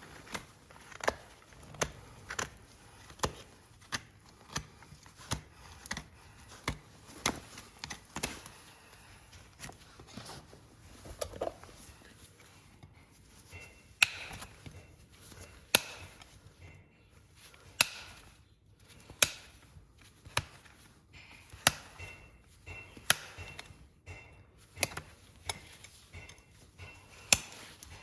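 Horse hoof being trimmed: a run of sharp cutting snaps from the trimming tool biting through hoof horn, about one or two a second, thinning out to scattered snaps after the first third.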